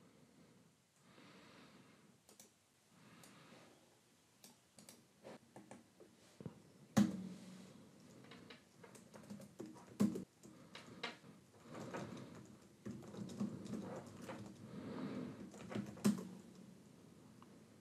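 Computer keyboard typing: irregular keystrokes, with a few louder key strikes about 7, 10 and 16 seconds in.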